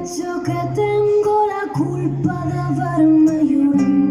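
A woman singing a melodic, wordless or unclear phrase over acoustic guitar accompaniment in a live pop song.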